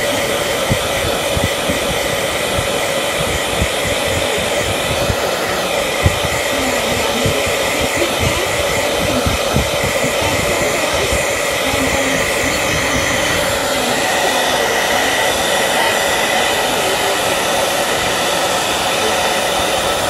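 Steady, loud whirring machine noise, like a running fan or blower, with a few constant tones in it and no change in pitch or level.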